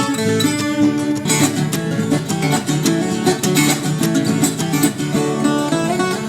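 Background music led by strummed and plucked acoustic guitar, played at a lively pace.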